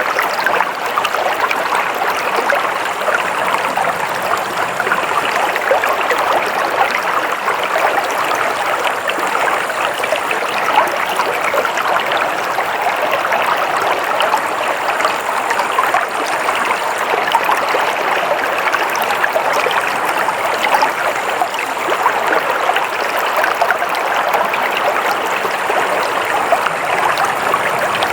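Water flowing steadily in a stream, a constant splashing rush without pause.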